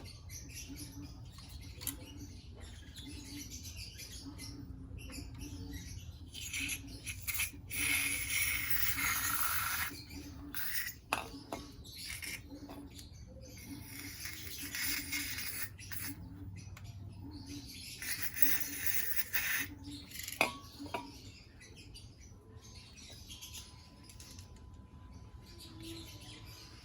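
Scratching, rustling handling noises from working on an air-conditioner unit's parts. There are three hissing bursts of one to two seconds each and a few sharp clicks, one loud click about twenty seconds in.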